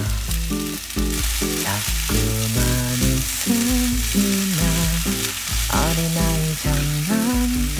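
Food sizzling as it is stir-fried in a pan for pad see ew. Background music with a steady bass beat and a melody plays over it.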